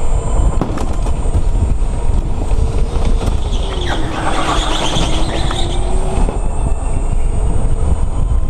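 Go-kart heard from an onboard camera: a continuous heavy low rumble with a motor tone that dips and rises in pitch, and a burst of hiss around the middle.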